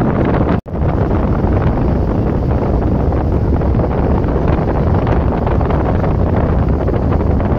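Strong wind buffeting the microphone: a loud, steady, low rumbling roar that cuts out for an instant about half a second in.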